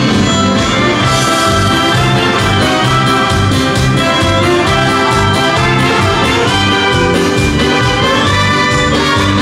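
Live dance band playing with a steady beat: saxophone over drums, bass and keyboard.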